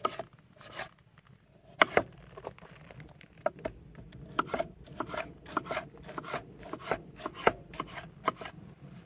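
Kitchen knife chopping tomatoes on a wooden cutting board: a run of sharp, irregular knocks, sparse at first and quicker from about three and a half seconds in.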